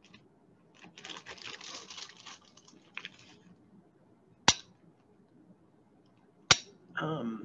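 Plastic zip-lock bag crinkling as tumbled stones clatter inside it, then two sharp clinks about two seconds apart as polished stones are set down on a glass plate.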